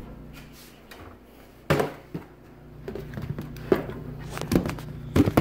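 Knocks and clatter of plastic kitchen containers and a measuring cup being handled on a counter as sugar is measured out. There is one sharp knock about a second and a half in, then a run of lighter clicks and knocks.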